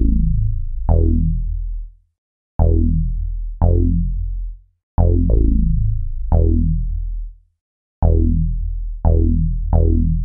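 Electronic intro music: a series of about ten deep bass notes, each starting sharply and fading out, with short silent gaps between some of them.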